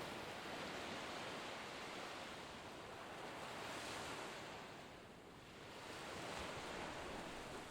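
Ocean surf: a steady wash of waves on a shore that swells, eases off about five seconds in, and builds again.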